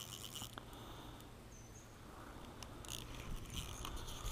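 Spinning reel's drag buzzing in short spells, a rapid high ticking, as a hooked catfish pulls line off against light line.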